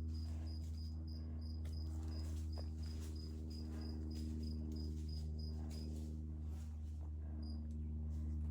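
An insect chirping, a short high note repeated about three times a second, stopping about six seconds in, over a steady low hum.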